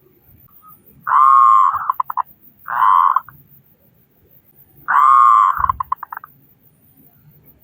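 Zebra dove (perkutut) cooing in loud, pitched notes. It gives a long phrase that breaks into quick stuttering notes, then a single short coo, then a second stuttering phrase.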